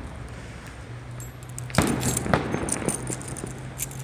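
Fireworks going off: two bangs about half a second apart midway, with light clinks around them over a low steady hum.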